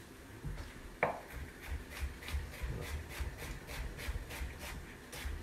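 Chef's knife chopping onion finely on a wooden cutting board: one sharp knock about a second in, then steady, rapid cuts at about four a second.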